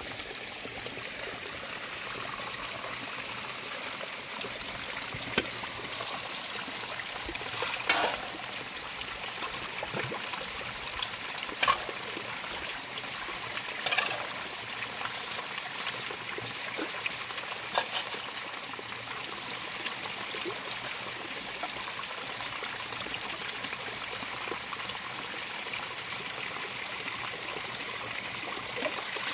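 Small stream trickling steadily over rocks, with a few sharp clinks and knocks of metal pots and plates being washed in it.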